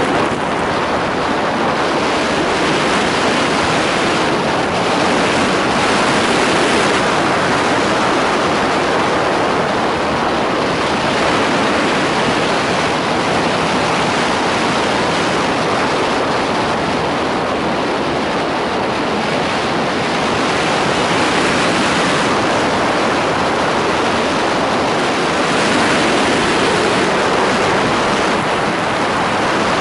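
Steady rush of wind across the microphone of a camera on a moving motorcycle, with the engine and tyre noise buried in it; it swells and eases gently every few seconds.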